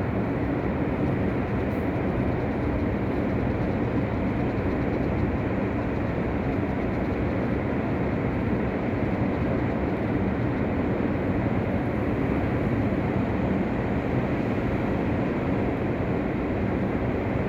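Heavy sea surf breaking continuously, a steady dense wash of noise with no single crash standing out.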